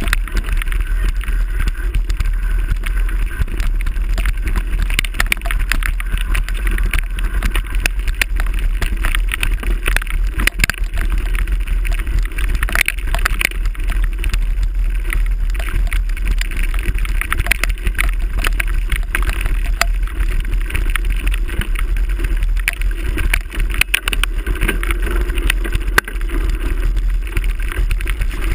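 Mountain bike being ridden, heard through a handlebar-mounted GoPro: a steady low wind rumble with dense rattling and clattering from the bike and the camera mount over the rough ground.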